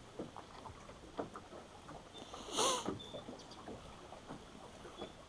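Faint on-the-water sounds around a small fishing boat: scattered small knocks and ticks, with one short, harsh call-like sound about two and a half seconds in.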